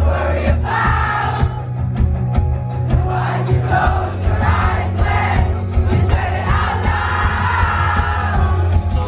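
Live pop concert music through a venue sound system: heavy, steady bass under a sung vocal line, with the crowd's voices mixed in, recorded from among the audience.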